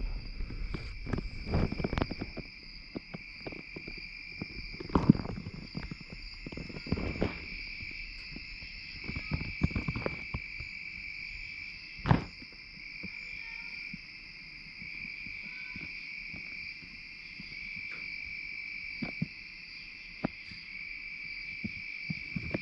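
Crickets chirping steadily in a pulsing high trill, with scattered knocks and clinks of tools and metal parts being handled on the engine; the sharpest knocks come about five and twelve seconds in.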